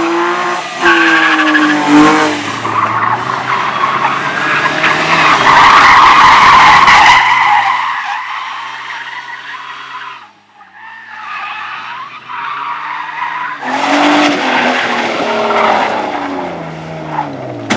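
Race car on a slalom course: the engine revs up and drops back again and again as the throttle is opened and lifted, with tyres skidding and squealing through the turns. The sound fades about ten seconds in, then the revs climb again.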